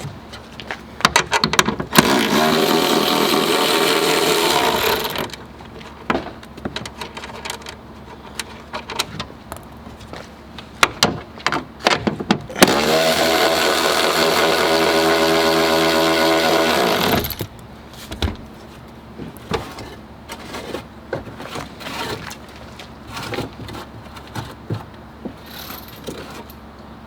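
A handheld electric power tool runs twice, once for about three seconds and once for about four and a half, each time spinning up and winding down, as fasteners are run in or out on the car's tail-light mounting. Between the runs there are scattered clicks and knocks of parts being handled.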